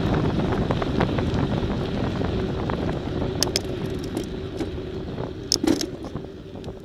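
Wind rushing over the microphone while travelling along a road, with rumbling road noise, gradually dying down. Two pairs of sharp clicks come a little past halfway and near the end.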